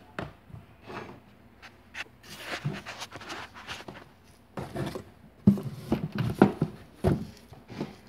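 Handling noise of the camera and hands over a wooden tabletop: irregular clicks, knocks and rubbing, with the loudest knocks coming in a cluster a little past halfway.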